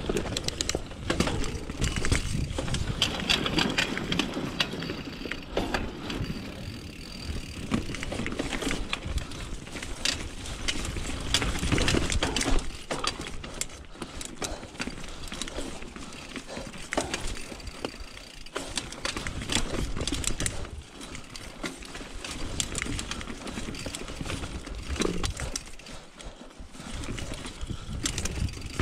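Mountain bike rolling over a dirt, gravel and rock singletrack: tyre noise with frequent rattles and knocks from the bike as it crosses rocks and roots. The loudness rises and falls with the terrain.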